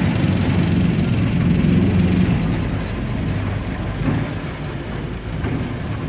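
Safari vehicle's engine running steadily, heard from aboard the open-top vehicle, a little louder in the first couple of seconds.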